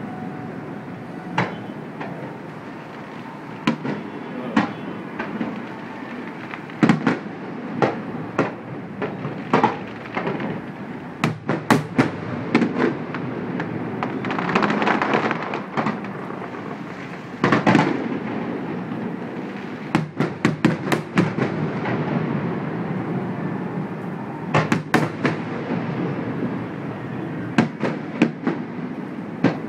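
Fireworks bursting at a distance: many sharp bangs in quick, irregular succession, some in clusters, over a steady background rumble that swells for a couple of seconds around the middle.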